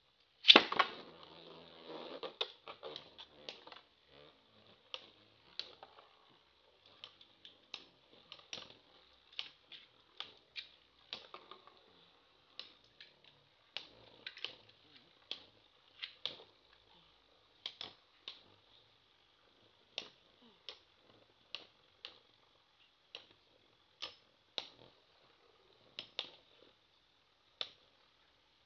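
Metal-wheeled Beyblade spinning tops battling in a plastic stadium: a loud clack about half a second in and a short clatter, then sharp clicks as the tops strike each other, roughly once a second, over a faint steady high whir.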